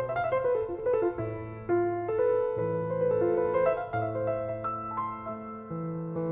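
Background piano music: a slow melody of held notes over sustained low bass notes.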